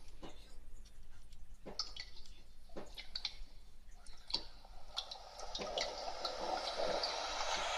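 Cubot toy dancing robot moving on a wooden tabletop: irregular light clicks and taps from its arms and body. A soft steady noise grows louder over the last few seconds.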